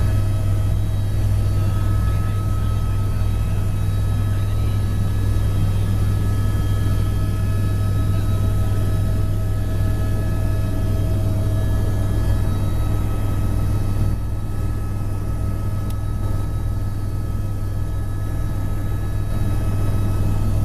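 Helicopter in flight: a steady low drone of rotor and turbine with several steady whining tones above it, dipping slightly in loudness about two-thirds of the way through.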